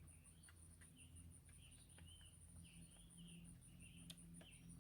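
Faint outdoor background: an insect's high, steady pulsing call, with a few soft bird chirps over it.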